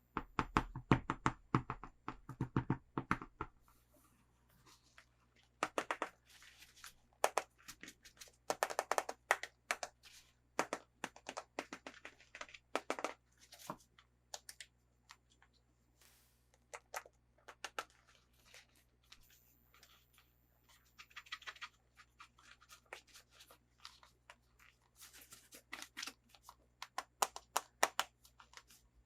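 Hands unpacking a toy, with packaging crackling, tapping and tearing in quick clusters of clicks. The handling is busiest at the start, in the middle and near the end, with scattered ticks in between.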